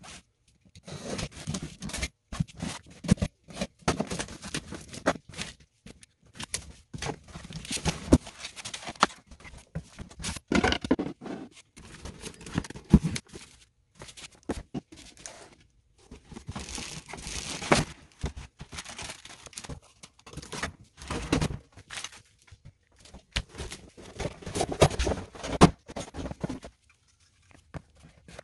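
Cardboard packaging being opened and handled: box flaps and inner cardboard tearing and rustling, plastic wrap crinkling, and now and then a sharp knock as a part is set down. The sounds come in irregular bursts with short pauses.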